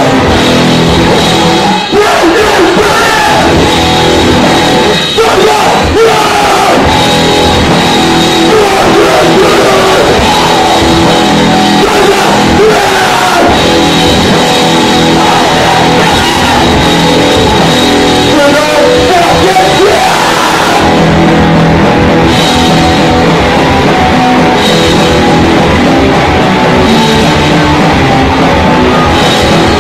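Heavy rock band playing loud: electric guitars, bass and drums, with a vocalist shouting over them.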